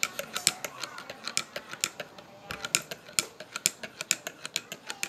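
Metal spoon stirring coffee in a ceramic mug, clinking against the inside of the mug in rapid clinks, about four or five a second, with a brief pause about halfway through.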